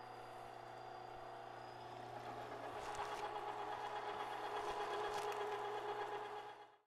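Electric meat grinder motor running steadily while grinding seasoned, cured meat, its hum getting louder about halfway through, with a couple of sharp clicks. The sound cuts off suddenly just before the end.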